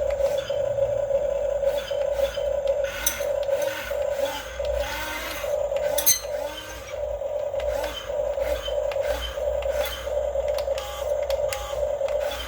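Huina 1550 RC excavator's electric motors whining steadily, with short rising and falling pitch sweeps as it works, and scattered sharp clicks and knocks.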